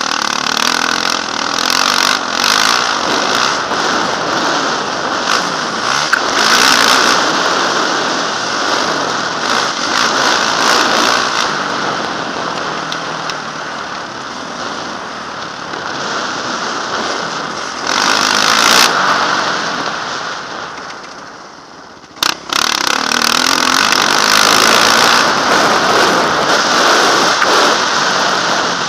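Yamaha motocross bike's engine running hard on the throttle, revving up and down as the rider shifts gears. Heard from a helmet-mounted camera. About three-quarters of the way through, the engine note dies away and then the throttle snaps back on sharply.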